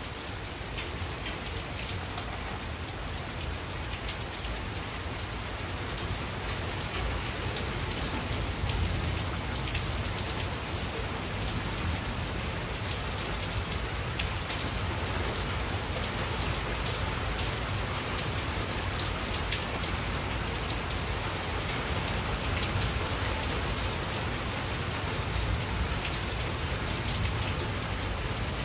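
Steady rain falling: an even hiss dotted with many fine drop ticks, with a low rumble underneath.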